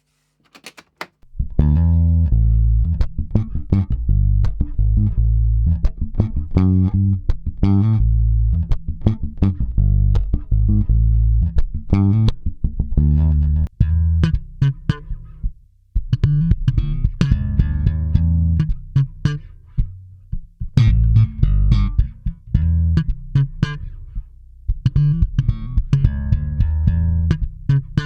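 Handcrafted electric bass guitar being played: a busy line of plucked notes with sharp attacks and strong low notes. It starts about a second in after a few clicks and has one brief gap about halfway through.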